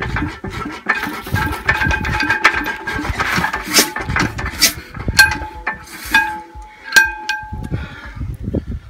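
Background music with plucked guitar notes over a steady low beat.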